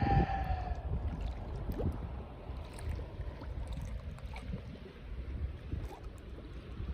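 Wind buffeting the microphone with sea water washing and lapping, loudest in the first second and steadier after; a brief falling cry is heard right at the start.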